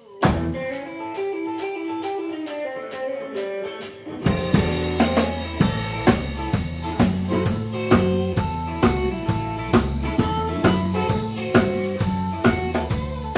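Live electric blues band. For the first few seconds the drums click out a steady beat about four times a second under an electric guitar line, then about four seconds in the bass and full drum kit come in and the band plays on together.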